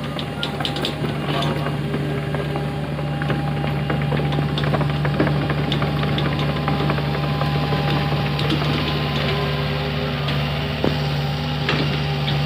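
Hitachi Zaxis 48U mini excavator's diesel engine running steadily under work, with a thin hydraulic whine and scattered clanks and squeaks from the arm and tracks as the machine moves.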